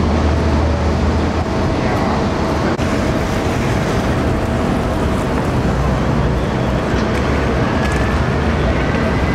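Dense, steady city street noise: traffic running with a low engine hum underneath, and a faint rising whine near the end.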